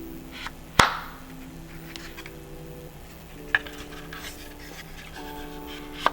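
Handling clicks and knocks from unboxing: three sharp clicks of hard parts or packaging, the loudest about a second in, another around the middle and one near the end, with a few fainter ticks between. Soft background music with sustained chords plays under them.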